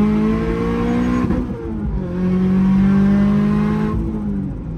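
Turbocharged 2.4-litre flat-four of a 2022 Toyota GR86, heard from inside the cabin, pulling hard under boost. The engine note climbs slowly, breaks off briefly about a second and a half in, then climbs again.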